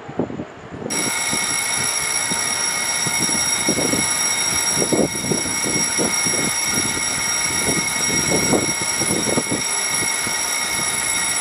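An electric station departure bell rings continuously, a loud, steady metallic ringing that starts suddenly about a second in and cuts off just before the end, signalling that the train is about to leave. Irregular low knocks and rumbling sound underneath it.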